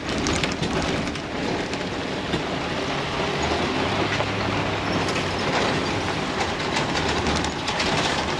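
Class A motorhome rolling over a rough dirt road, heard from inside the cab: a steady engine and road drone with constant rattling and clattering.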